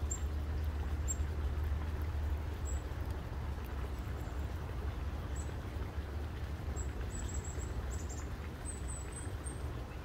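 A steady low rumble under faint, high, short songbird chip notes. The chips come singly at first and in quick runs of several near the end.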